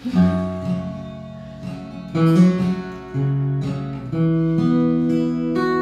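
Opening bars of a song played on acoustic guitar, with a second, smaller acoustic string instrument alongside it. Picked and strummed chords ring on, and a new chord sounds roughly once a second.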